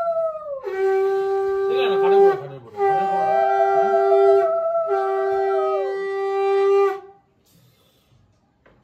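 Conch shell (shankha) blown in three long, steady blasts at one pitch, with a second, wavering tone sounding over part of them; it stops about seven seconds in.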